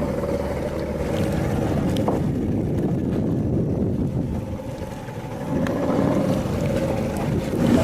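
Fishing boat's engine running steadily with a low drone, with wind buffeting the microphone; the drone eases briefly about halfway through, then returns, and a few faint knocks sound.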